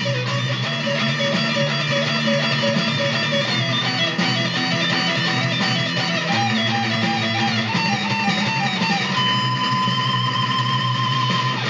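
Two electric guitars playing together: a quick picked lead line of short repeating notes over a steady lower rhythm part. Near the end the lead settles on one held high note.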